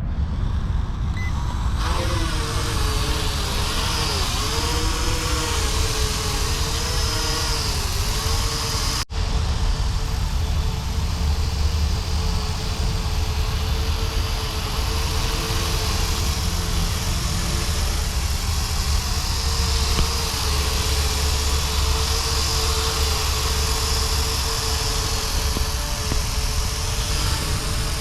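Small electric motors and propellers of a toy VTOL airplane drone spinning up about two seconds in. Their whine wavers in pitch for several seconds, then settles into a steady hum. Heavy wind rumble on the microphone runs underneath, with a brief dropout about nine seconds in.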